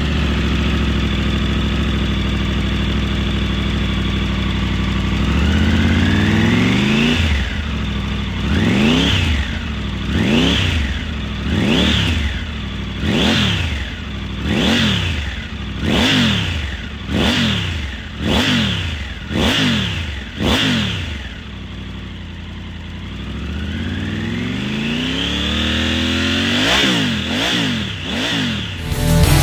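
Triumph Tiger 900's three-cylinder engine through a GPR Furore Evo4 Nero muffler, revved on the stand. It idles, then makes one long rev, a run of about ten sharp throttle blips, drops back to idle, then makes a slower rev and three quick blips near the end.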